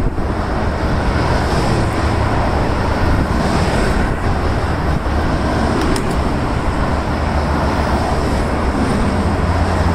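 Steady rush of wind over the microphone of a bicycle-mounted camera while riding, mixed with road traffic noise.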